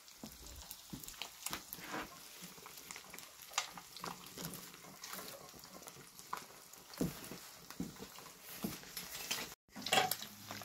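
Fish frying in hot oil: faint, irregular crackling and popping, with a brief dropout near the end followed by a louder burst of crackle.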